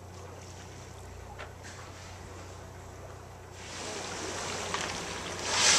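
Boat engine idling with a steady low hum under wind and water noise. A little past halfway a rushing hiss builds up, loudest just before the end.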